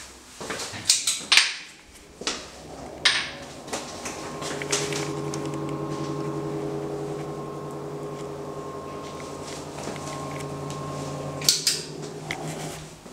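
A few sharp clicks and knocks, then a bathroom extractor fan hums steadily for about seven seconds and cuts off with a click near the end.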